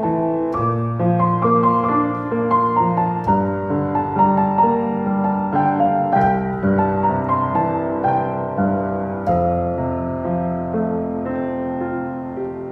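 Solo piano playing a slow, gentle piece: held bass notes under a melody, changing about once a second, growing a little softer near the end.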